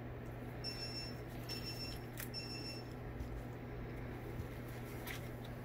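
Steady low room hum with a few faint ticks of small precision hex drivers on the metal ring of a surgical microscope observer tube, and three short faint high beeps in the first few seconds.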